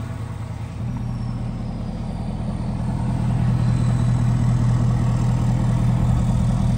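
Ford Super Duty pickup's engine idling steadily. It gets louder about a second in and a little more toward the middle.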